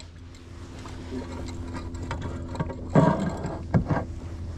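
Camera handling noise: knocks and clicks as an action camera is shifted and re-set on its kayak mount, with one louder thump about three seconds in, over a steady low hum.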